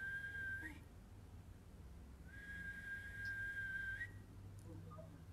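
A long, steady whistled note at one pitch, sounded twice with a short gap, each ending in a small upward flick of pitch, over a low background hum.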